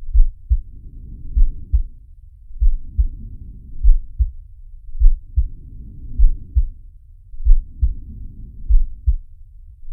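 Slow heartbeat: deep double thumps, lub-dub, about every 1.2 seconds, with slow, even breathing swelling in and out over it.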